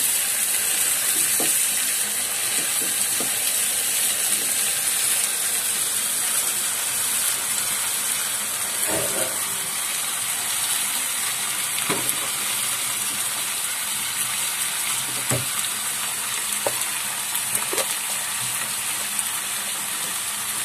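Onions and chili paste frying in oil in a frying pan: a steady sizzling hiss, with a few light knocks as the plastic spatula stirs against the pan.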